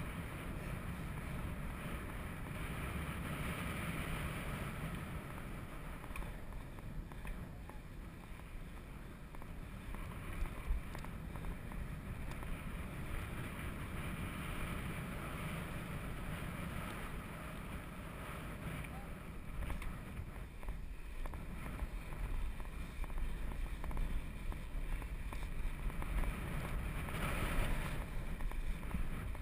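Steady rushing and rumbling noise from a bicycle-mounted GoPro camera on the move: wind over the microphone and ride vibration, getting rougher and a little louder over the last several seconds.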